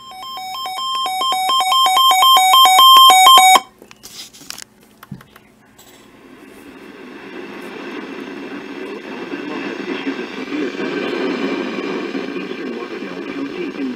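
Electronic alert tone switching rapidly back and forth between two pitches, growing louder for about three and a half seconds and then cutting off abruptly. A few clicks follow, then a low, noisy rumble slowly swells.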